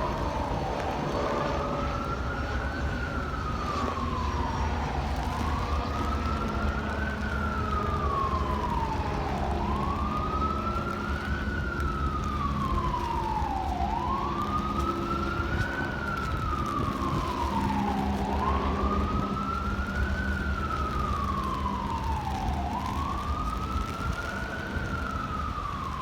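Emergency vehicle siren on a slow wail, rising quickly and falling slowly in pitch, about once every four seconds, over a steady low rumble.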